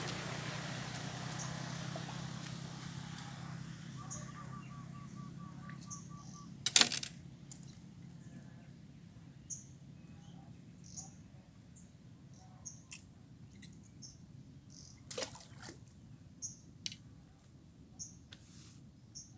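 Outdoor ambience with small birds giving short, high chirps. There is a sharp knock about seven seconds in and another about fifteen seconds in, and a rushing noise fades away over the first few seconds.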